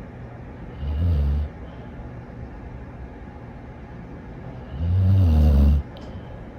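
A dog snoring: two low snores about four seconds apart, the second a little longer than the first.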